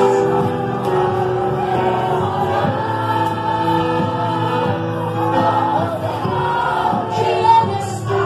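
A congregation singing a Portuguese gospel worship song together with a lead singer, over sustained instrumental backing.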